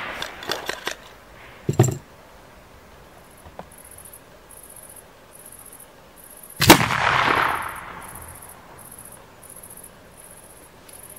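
A ramrod rattles and knocks in the smoothbore barrel of a .69-calibre French 1777 flintlock cavalry pistol as the load is seated. About six and a half seconds in, the pistol fires one loud black-powder shot whose report echoes and dies away over about a second.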